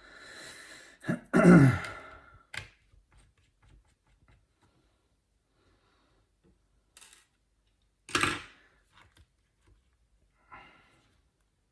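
A person's sigh, falling in pitch, about a second in, amid a few faint clicks of small tools and laptop parts being handled; a second short breathy burst comes about eight seconds in.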